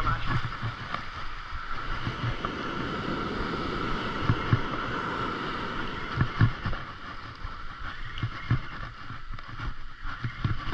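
Spinning reel cranked fast in a steady retrieve, a continuous whir that weakens after about six seconds, over surf washing and wind thumping on the microphone.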